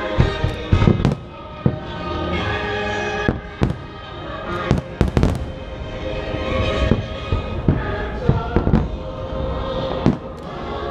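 Aerial fireworks bursting in clusters of sharp bangs, heaviest near the start, around the middle and near the end, over a steady music soundtrack.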